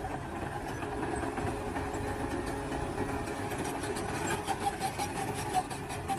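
Excavator engine idling steadily, with faint regular ticking in the second half.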